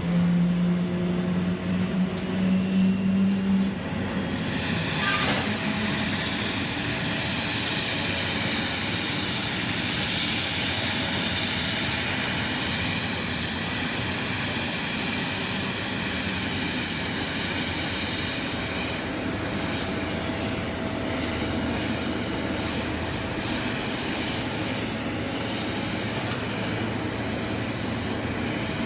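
Boeing 777-300ER's GE90 turbofan engines running: a steady jet rush with a high whine that comes up about five seconds in and holds, easing a little near the end. A low steady hum in the first few seconds stops about four seconds in.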